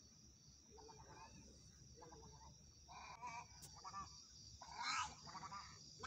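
Little egrets calling: a series of short, harsh calls, faint in the first half and coming more often and louder in the second, the loudest about five seconds in.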